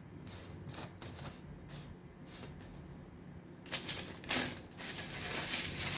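Light, scattered tapping and clicking as freshly baked raisin buns are handled on a cooling tray. From about halfway through come a few seconds of much louder rustling and scraping noise.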